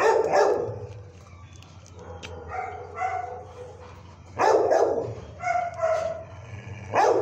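Dog barking: three loud barks a few seconds apart, with quieter pitched yips between them.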